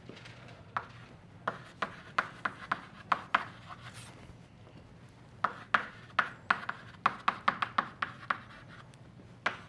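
Chalk writing on a blackboard: short, sharp taps and strokes in quick runs, with a pause of about a second around halfway.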